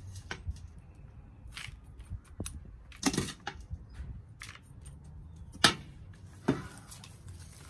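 Potting mix being scooped out of a stainless steel stockpot and dropped into a plastic plant pot: soft rustling and scraping of soil, with a few sharp clinks against the steel, the loudest about three and five and a half seconds in.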